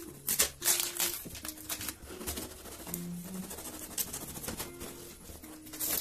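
Knife slitting packing tape and tearing the cardboard of a shipping box: a series of short ripping and scraping sounds, the loudest about half a second in and near the end.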